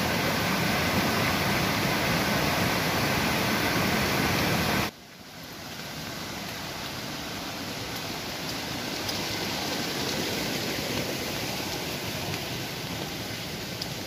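Rushing stream water, a steady, loud noise, which cuts off abruptly about five seconds in. A much quieter steady hiss follows.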